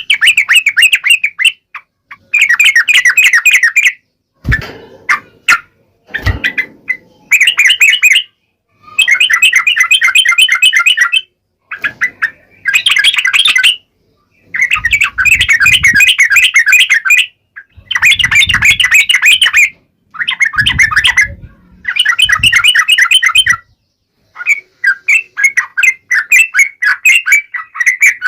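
Yellow-vented bulbul singing in rapid chattering phrases about two seconds long, repeated with short pauses between them. Two low thumps sound a few seconds in.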